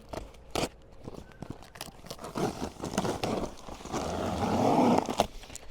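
Cardboard shipping box being opened and handled: a few sharp knocks and clicks, then a scraping, rustling slide of cardboard from about halfway through, loudest near the end.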